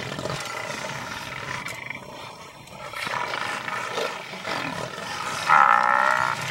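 Lions growling over a Cape buffalo they have pulled down. About five and a half seconds in comes a loud drawn-out call lasting just under a second.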